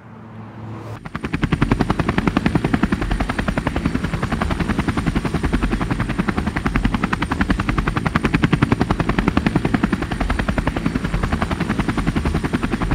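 Small folding quadcopter drone's rotors spinning up about a second in, then running loud and steady as it lifts off from a hand: a fast, even buzzing flutter with a thin high whine over it.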